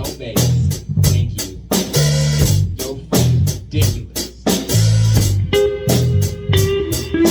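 Live band jamming: a drum kit keeps a steady beat under bass guitar and guitar. A held note rings out over the last couple of seconds.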